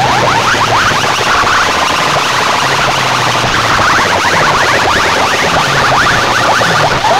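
Very loud electronic sound effects blasted through large DJ sound-system speakers: fast repeating rising chirps, about eight a second, in overlapping layers that make a cacophony, over a low steady drone.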